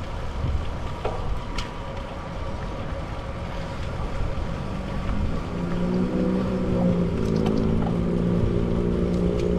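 Wind rumbling on a bike-mounted camera's microphone, with tyre and road noise, as the bicycle rides along at speed. About halfway through a steady droning hum fades in and grows louder.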